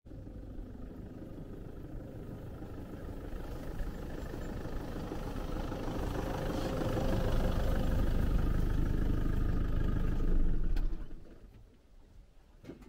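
Pickup truck driving up with its engine running, growing louder as it comes close. The engine is then switched off, and the sound drops away abruptly about eleven seconds in.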